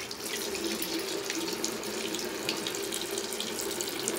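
Water tap running steadily into a bathroom sink.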